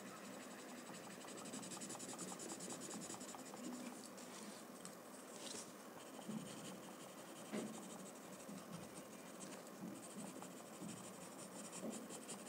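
Pencil scratching faintly on a paper card in quick, repeated strokes while shading a drawing.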